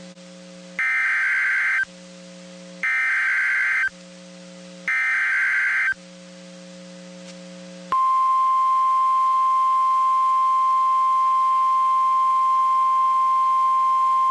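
NOAA Weather Radio emergency alert: three short bursts of SAME digital header tones, each about a second long and a second apart. About eight seconds in, the steady 1050 Hz warning alarm tone begins and holds, the signal that a warning is about to be broadcast. A low receiver hum runs underneath.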